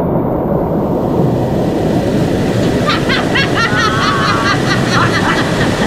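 River water rushing steadily and loudly. About halfway through, a run of quick high chirps and a warbling call are heard over it.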